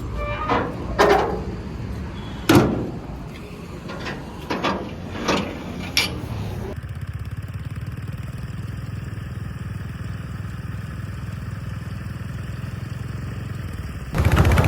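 Backhoe loader's diesel engine running, with several sharp metallic clanks and knocks in the first half, the loudest about two and a half seconds in. Partway through the sound changes abruptly to a steady, even engine drone, which grows louder at the very end.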